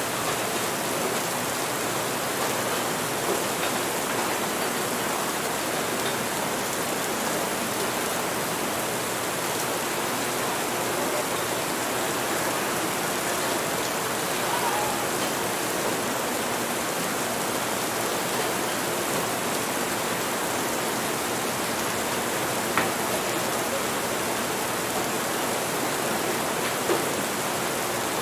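Steady rain falling as an even hiss, with a couple of brief sharp ticks near the end.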